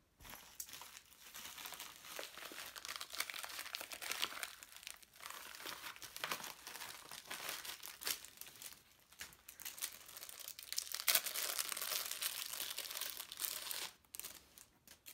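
Clear plastic packaging bag crinkling as it is handled and opened, a dense crackle loudest about eleven seconds in that stops shortly before the end.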